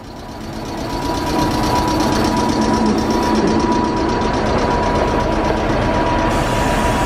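Railway locomotives standing coupled and idling: a steady machine hum with a thin, steady high whine. It grows louder over the first second and a half, then holds level.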